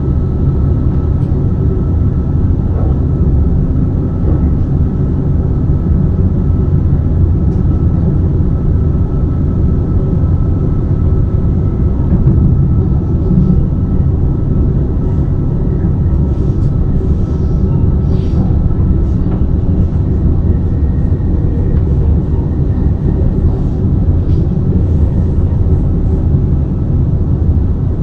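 Steady low rumble of a BLS RABe 515 electric multiple unit running along the track. A faint steady high tone sounds through about the first half, and a few light ticks come in the second half.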